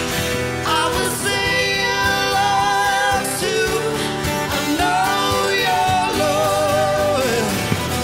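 A song with a singer holding long, wavering notes over the backing music.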